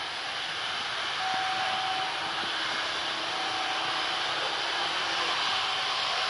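Jet engines of an Airbus A330 airliner running on the runway, a steady rushing whine with a faint tone that comes and goes, slowly growing louder.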